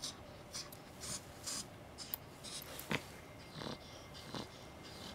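Grooming scissors snipping and scratching at a Persian cat's matted fur: short, irregular snips with faint rustling, the clipper switched off.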